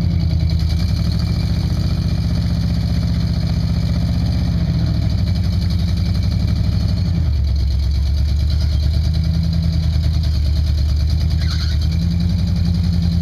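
Jeep CJ engine running under load as it crawls up a rock ledge, revs stepping up and dropping back several times.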